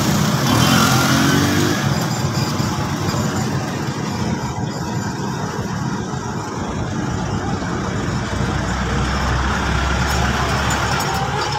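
A vehicle engine running steadily with a dense low rumble. A deeper rumble swells in over the last few seconds.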